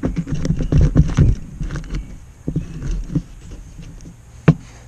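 Knife cutting a small baitfish in half on a wooden board: a quick run of taps and scrapes of the blade against the wood in the first second and a half, scattered lighter ticks after, then one sharp knock near the end.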